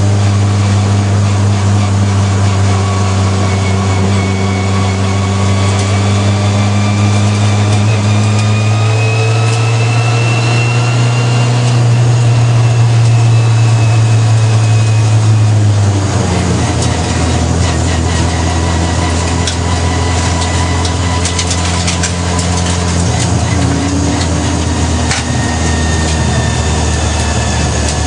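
Racing car engine heard from inside the cockpit, running at steady moderate revs at low speed. Its note rises slightly, then drops about halfway through to a lower, rougher running as the car slows to a crawl. A faint gear whine sits above it.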